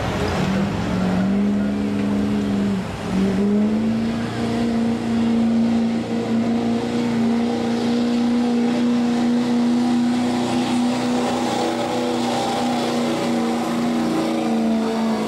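Ford F-250 Super Duty's 6.4-litre Power Stroke V8 turbo-diesel running at high revs under full load, pulling a weight-transfer sled. The engine note climbs over the first second or so, dips briefly about three seconds in, then holds steady and high.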